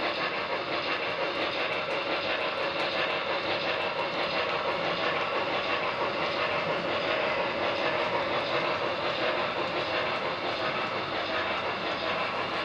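HO-scale model freight cars rolling past on the track: a steady rolling rumble with faint, fast ticks from wheels on the rail joints.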